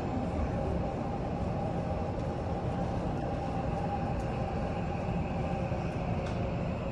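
Subway train running, a steady rumble heard from inside the carriage, with a faint steady tone over it.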